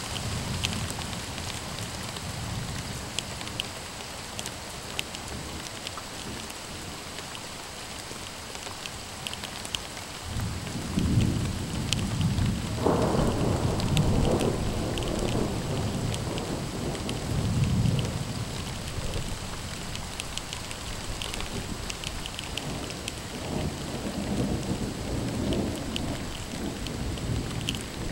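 Steady rain falling, with single drops ticking close by. About ten seconds in, a long roll of thunder rumbles for several seconds, and a second, weaker roll follows near the end.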